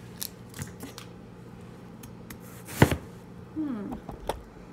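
Dry onion skin being peeled by hand, with small crackles, and one loud knock a little under three seconds in. A steady low hum runs underneath.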